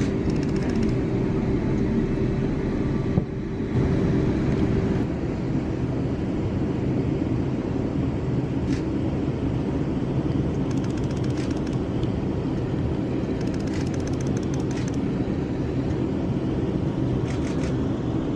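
Steady running noise inside a passenger train at speed: wheels on rails and the train's hum, with a steady tone fading out after about five seconds and faint clicks and rattles now and then.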